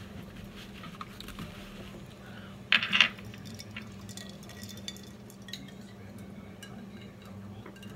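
Table sounds during a meal: light clinks and taps of cutlery, plate and glass, with one brief loud burst of noise about three seconds in.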